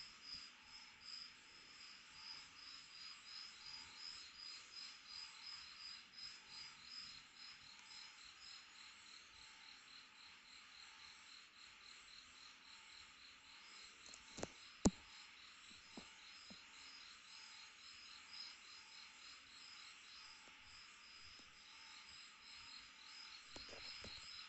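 Night insects chirping, a faint steady high-pitched pulsing trill. A few sharp clicks a little past the middle.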